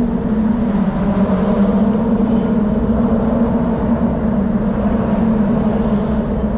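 Steady hum of vehicle tyres crossing an open steel-grid bridge deck: a continuous low drone with a few fainter held tones above it.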